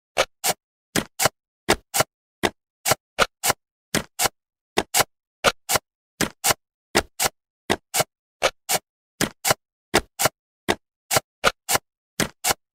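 Jigsaw-piece snap sound effect: short dry clicks, often in quick pairs, a few each second, one for each piece clicking into place as the puzzle is assembled.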